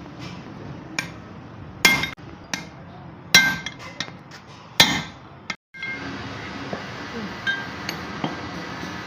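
Metal on metal: several sharp hammer blows and clinks on tractor parts, each with a short metallic ring, the loudest three about one and a half seconds apart. After a brief cut-out, only steady background noise remains.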